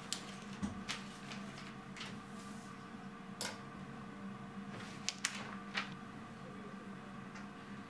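Paper being handled and flipped at a desk: a scatter of short rustles and taps, the sharpest a few together about five seconds in, over a steady low hum.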